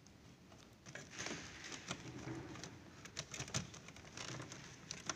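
Light clicks and rustles of hands handling cables and plastic parts inside a ceiling-cassette air-conditioner unit, scattered and uneven, with the sharpest clicks past the middle.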